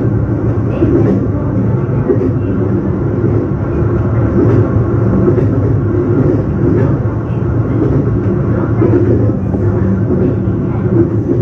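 Local electric train running between stations, heard from inside the carriage: a steady rumble of wheels on rail with a low motor hum, and a few faint clicks.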